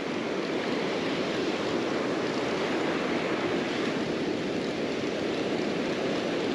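Surf breaking on the beach close by, a steady rushing wash of waves.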